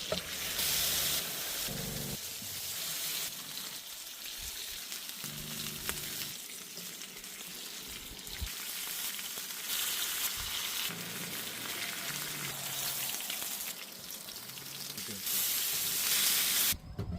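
Steak sizzling as it cooks over an open fire, a steady hiss that swells louder a few times, most of all near the end.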